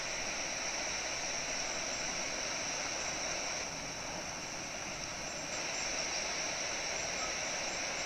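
Steady rushing whoosh of a huge flock of common starlings' wings, a murmuration in flight.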